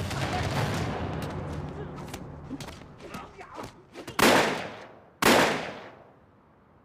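Two gunshots about a second apart, each sharp crack followed by an echoing tail, coming after a dense mix of background sound has faded away.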